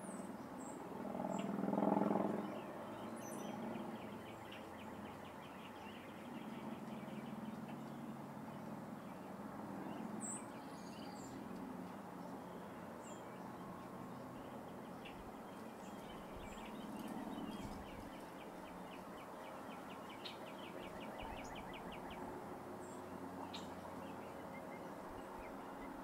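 Outdoor backyard ambience: scattered short, high bird chirps and several fast trills over a steady low background hum, with a louder low swell about two seconds in.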